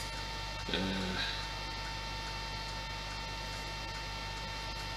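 Steady electrical mains hum with a thin high tone running over it. A brief voice-like murmur comes about a second in.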